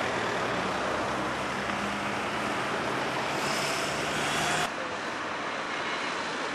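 Road traffic noise: a car engine humming as vehicles pass slowly, under a steady rushing of wind on the microphone. The engine hum cuts off abruptly about two-thirds of the way in, leaving the wind rush.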